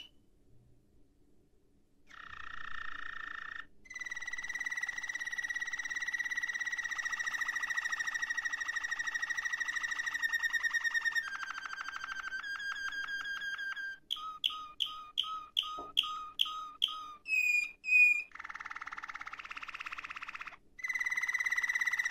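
Domestic canary singing a long song made of trill tours. After about two seconds of near silence come a short buzzy trill, a long rapid trill lasting about six seconds, and shorter trills. Then a run of repeated slurred notes at about two a second, two clear whistled notes, and more buzzy and rapid trills.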